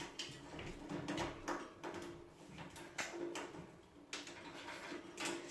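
Alexandrine parakeet bathing in a small pot of water: a series of short, irregular splashes and flutters as it dips and shakes in the water.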